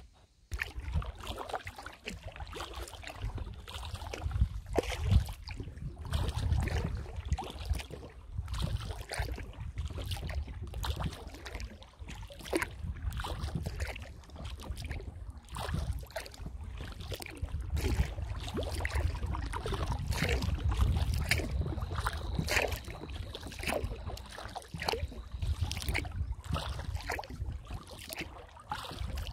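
Kayak paddle strokes: water splashing and dripping off the paddle blades in irregular patters, over a steady low rumble. A faint thin high tone runs for a few seconds past the middle.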